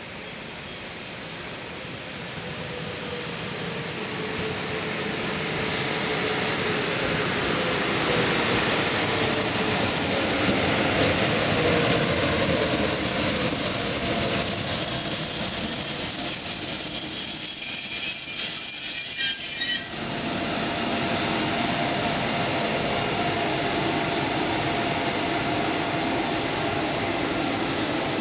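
Passenger train hauled by a ČD class 163 'Pershing' electric locomotive running into a station. The sound of the train grows as it approaches. From about four seconds in, a loud, steady high squeal of the brakes rings until the train halts, about twenty seconds in, where it cuts off suddenly. After that the standing locomotive hums steadily.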